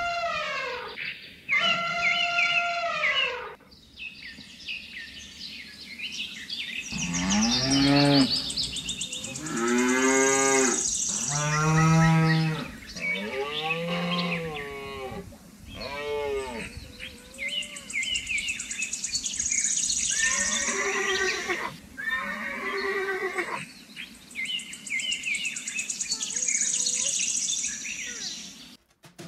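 Cattle mooing: about five long moos in a row through the middle, with shorter, higher-pitched animal calls near the start and again later.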